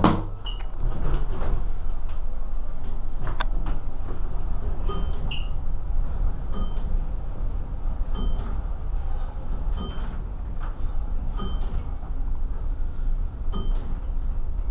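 Hotel elevator car travelling down, heard from inside the car: a steady low rumble of the ride. From about five seconds in, a short electronic chime sounds six times, evenly about every 1.7 s, signalling each floor as the car passes it. A few light clicks and knocks come in the first few seconds.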